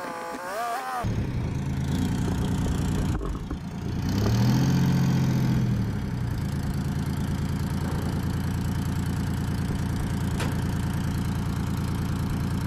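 Clark Michigan wheel loader's diesel engine running close by. It comes in suddenly about a second in, rises in pitch and gets louder for about two seconds around four seconds in, then settles back to a steady run.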